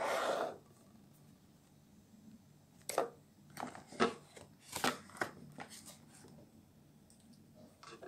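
Rustling and light tapping handling noise: a short rustle right at the start, then a run of sharp clicks, taps and scrapes a few seconds in.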